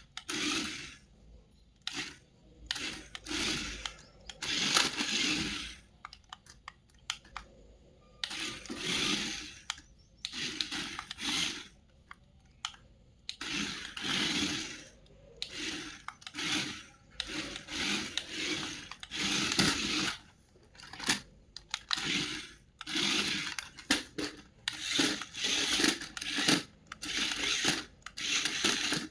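Toy packaging being handled and opened: irregular bursts of rustling, rubbing and tearing of plastic and cardboard.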